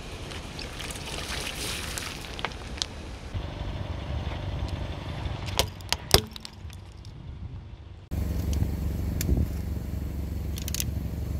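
A car's tyre rolls slowly over asphalt with the engine running as a low rumble. About six seconds in, plastic toy cars crushed under the tyre give two sharp cracks.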